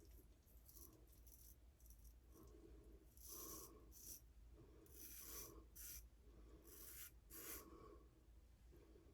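Straight razor scraping through shaving lather and stubble on a face, a series of short, faint strokes at an uneven pace.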